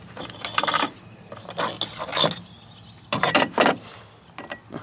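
A few short bursts of metallic rattling and scraping, about a second apart, from the vent pipe and saw blade being handled just after the piece inside the pipe has been sawn off.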